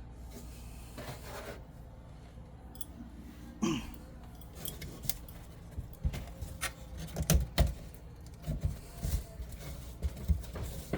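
Scattered clicks, taps and crinkling rustles as a flexible aluminum dryer vent duct is handled and fitted, with a few dull knocks.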